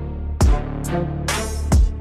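Background music: heavy drum beats over a sustained deep bass, with bright cymbal hits.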